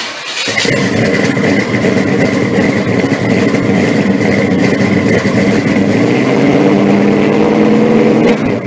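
A car engine running steadily and loud, with a thin high whine over it. It starts abruptly and drops away at the very end.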